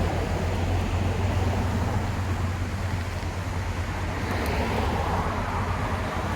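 Street traffic noise, with a car passing and fading about four to five seconds in.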